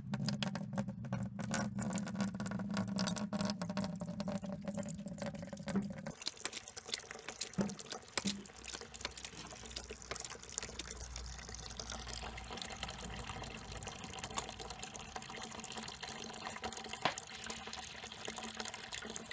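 Freshly pressed apple juice pouring in a thin stream from a fruit press's stainless steel spigot into a plastic bucket, with a steady splashing trickle and many small drips. The sound changes about six seconds in.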